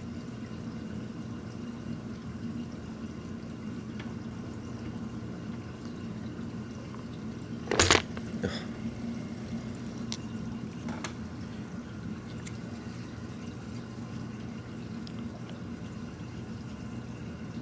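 Steady water sound of a reef aquarium's circulation with a low, even hum, broken about eight seconds in by one short, loud knock and a few faint clicks.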